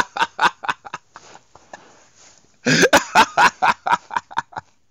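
A man laughing in two bouts of quick repeated bursts, the second starting about halfway through.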